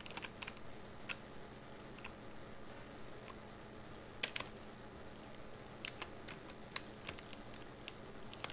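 Irregular clicks of computer keyboard keys and mouse buttons, used as Blender shortcuts and selections during 3D modelling, with one louder click about four seconds in. A faint steady hum runs underneath.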